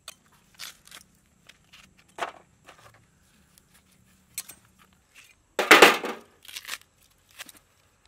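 Dried stingray being cut with a knife on a wooden chopping block and its stiff pieces handled: scattered small cuts, taps and crackles, with one much louder impact about three quarters of the way in.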